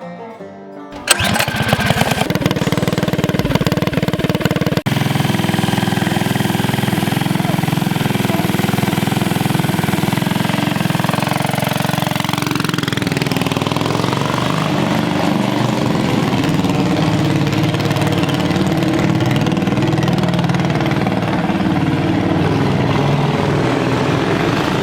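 Mini bike's 18 hp Tillotson 225 single-cylinder engine running hard as the bike is ridden, its pitch rising and falling with the throttle. It comes in suddenly about a second in, and around the middle the sound dips and sweeps in pitch as the bike passes by.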